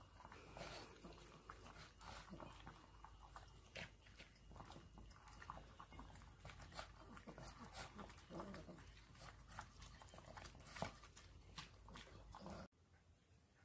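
Two small dogs eating from bowls: quiet, irregular clicking and crunching of chewing and lapping, with small knocks against the bowls. It cuts off sharply about a second before the end.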